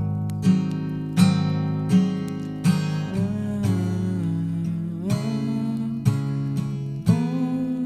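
Instrumental passage of a folk song: acoustic guitar strummed about once a second over held chords, with a melody line sliding between notes above it.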